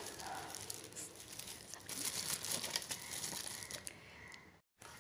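Plastic wrapping crinkling and rustling as a mixer-grinder jar in its plastic bag is handled and lifted out of a cardboard box, with many small clicks and crackles.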